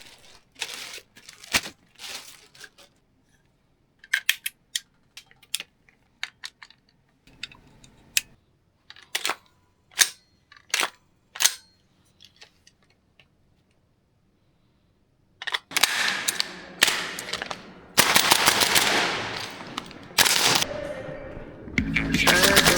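Gas blowback airsoft rifle (MWS-based URGI MK16) shooting. Scattered light clicks come first, then four loud single shots a little under a second apart, then after a pause several runs of rapid fire. Music begins right at the end.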